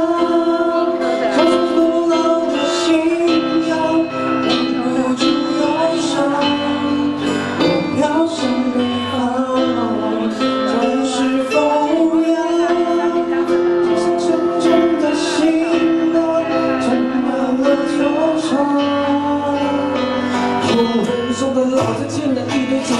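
Live band music played through PA speakers: guitar and keyboard accompanying a sung melody, with a steady beat.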